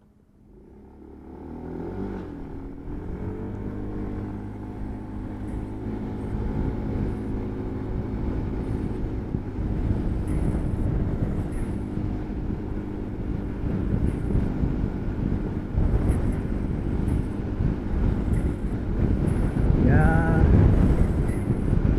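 Scooter engine pulling away from near quiet, its pitch rising over the first few seconds and then running steadily, with wind and road noise growing louder as it gathers speed. A short wavering tone comes in near the end.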